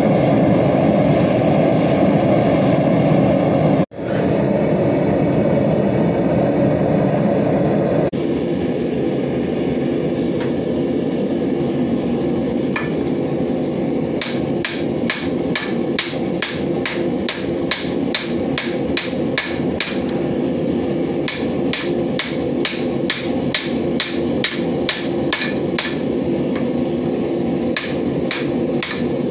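A gas forge burner running steadily. Then a small titanium hammer striking hot titanium on a steel anvil, sharp ringing blows about two a second, with short pauses between runs.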